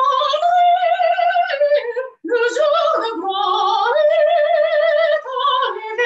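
A soprano singing solo with operatic vibrato, holding long notes with a short breath about two seconds in.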